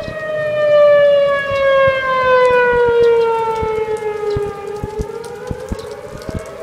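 Outdoor tornado warning siren wailing during a tornado warning. Its tone slowly falls in pitch, then climbs again near the end, loudest about a second in.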